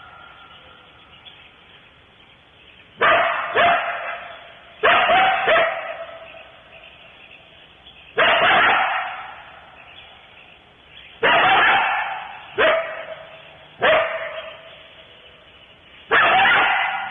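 Coyotes barking: about nine harsh barks at irregular intervals, each cut off sharply and trailing into a brief tone.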